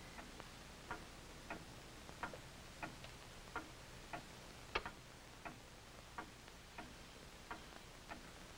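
Pendulum wall clock ticking steadily, a little under two ticks a second.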